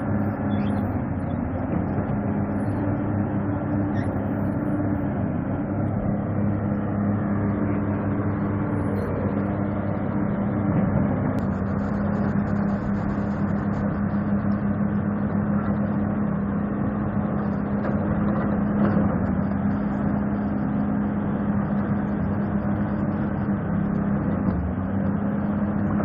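Excavator diesel engine running steadily at constant speed, a low even drone with no change in pitch.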